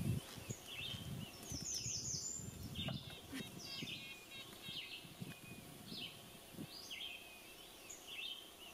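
Songbirds chirping and calling over a faint outdoor background, short calls and quick falling note runs repeating every second or so. A low rumble underlies the first few seconds and then fades.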